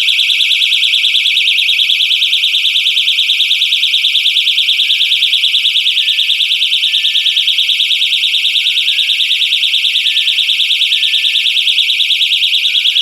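Home-made door/window alarm siren sounding continuously with a rapid, high-pitched warble. It was set off by pulling the magnetic sensor unit apart.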